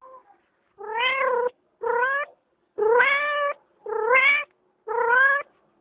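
Young Bengal cat meowing five times in a row, about once a second, each meow short and rising in pitch at its start.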